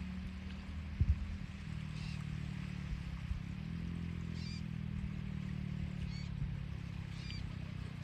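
A steady low engine hum, its pitch shifting a little about three seconds in, with four short high bird calls spread through it and a single knock about a second in.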